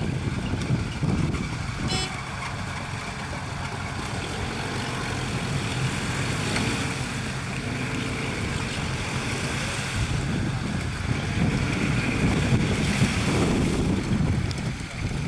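UAZ 4x4 off-roader's engine running while the vehicle sits stuck in a muddy pond, getting slightly louder in the last few seconds, with wind buffeting the microphone.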